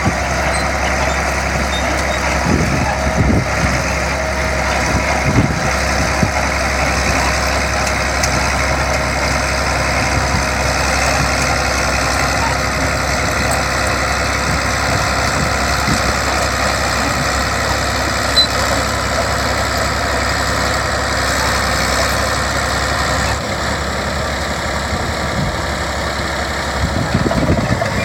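Crawler bulldozer's engine running steadily under load as the machine pushes earth with its blade.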